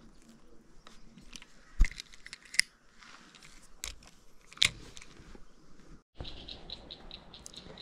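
Hand-handling noise close to the microphone: a few sharp clicks and knocks as bread bait is worked onto a small hook and a spinning rod and reel are handled. Near the end comes a quick run of even, high ticks.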